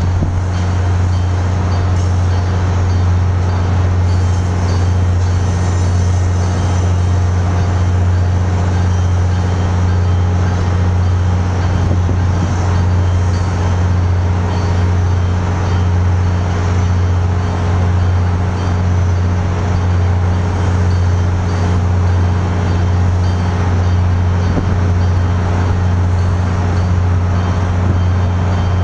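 Diesel locomotive engine running at a steady idle: a constant, loud low hum that does not change.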